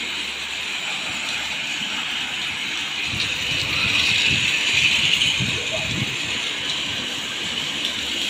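Centy battery-powered toy cargo train running on its plastic track: its small electric motor gives a steady high whir, louder for a few seconds midway as the train passes close by.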